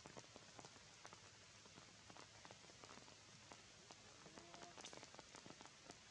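Light rain falling on foliage: a steady faint hiss with scattered drops ticking on the leaves. A short, faint pitched call sounds about four seconds in.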